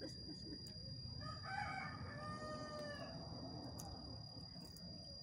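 A rooster crowing in the distance, one faint drawn-out crow starting about a second in and lasting about two seconds.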